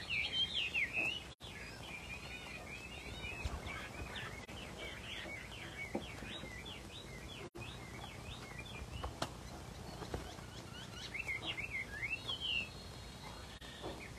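A caged Chinese hwamei singing a long, rapid run of varied, quickly sliding whistled notes, loudest in the first second and again near the end.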